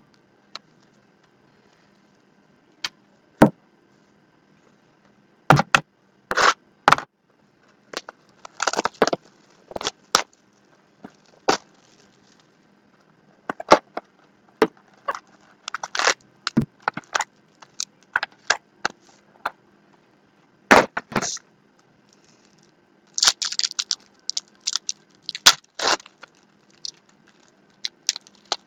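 Trading-card packs being opened and cards handled: wrappers crinkling and cards snapping and clicking at irregular intervals, with denser bursts of crackling now and then.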